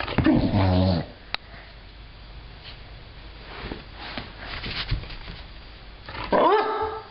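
A beagle-type dog barking twice: a long bark about a second long at the start, falling in pitch, and a second, higher bark near the end, with soft scuffling between them.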